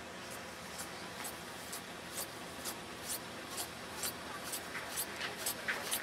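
Footsteps crunching on packed snow, about two steps a second, growing louder toward the end.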